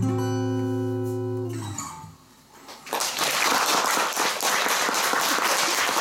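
Final chord on an acoustic guitar ringing out and dying away over about two seconds. After a short pause, an audience bursts into steady applause about three seconds in.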